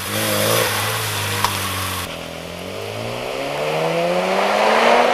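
Mazda RX-7 FD's 13B-REW twin-turbo rotary engine revving. A short rev comes first, then the engine pulls in a long, steady climb in pitch under acceleration, loudest near the end.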